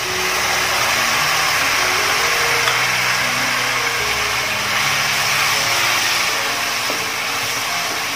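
Kudampuli (Malabar tamarind) soaking water poured into hot oil and masala in a kadai, setting off a loud, steady sizzle as the liquid hits the hot pan. The sizzle eases slightly near the end as the masala is stirred into it.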